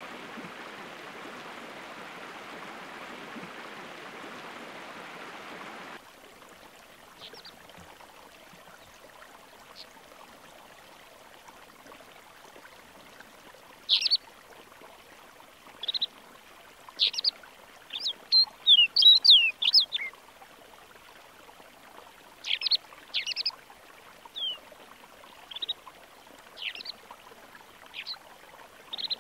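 Snowmelt stream running under snow banks, which stops abruptly after about six seconds. Then a snow bunting sings: short, bright, high notes every second or two, with a quick run of notes about two-thirds of the way through.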